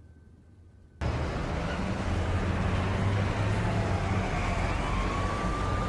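City street ambience, with traffic noise and low rumble, cutting in abruptly about a second in. A distant siren wails over it, gliding down and then up before holding its pitch.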